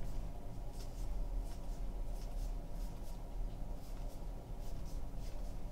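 Baseball trading cards slid one at a time off a stack from hand to hand, giving faint, irregular soft swishes of card against card over a steady low hum.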